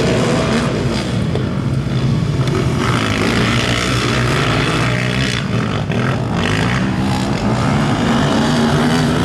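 Engines of several racing quads over 450 cc running hard together on a dirt track, a steady, loud mix of engine notes.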